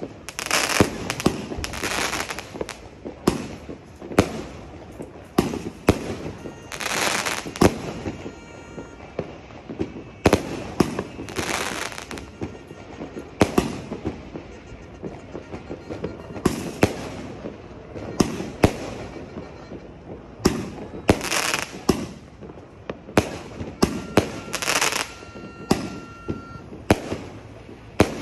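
A 160-shot fireworks cake firing aerial shots one after another. Sharp bangs come about every half-second to second, and many are followed by a short hiss as the burst spreads.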